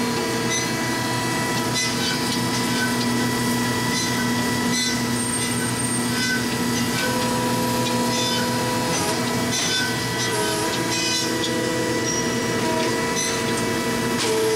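Marvel Series 15A automatic horizontal band saw running in its automatic cycle: a steady machine hum, with scattered light ticks and clicks and a few small shifts in the hum's pitch.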